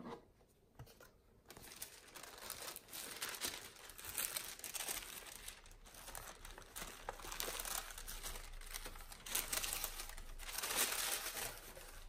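White tissue paper rustling and crinkling as it is unfolded and pulled back from inside a gift box, in continual short bursts starting about a second and a half in.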